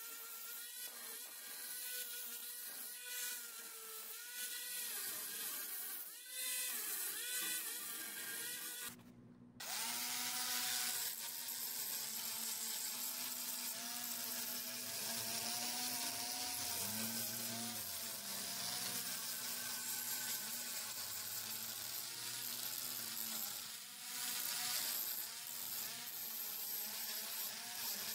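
Electric angle grinder with a flap disc grinding rust off a wrought-iron railing. The motor whine wavers up and down as the disc is pressed on and moved around the metal, over a steady hiss of abrasion, with a short break about nine seconds in.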